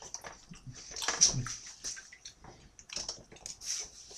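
Quiet eating sounds: forks clicking against plates and wet chewing of braised pork and mushrooms.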